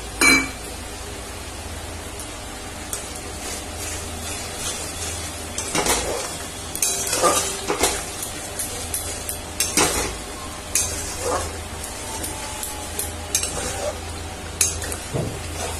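Spice masala and freshly added whisked yogurt sizzling in a metal kadai while a flat metal spatula stirs it, scraping and clinking against the pan. A single loud metal clank comes right at the start.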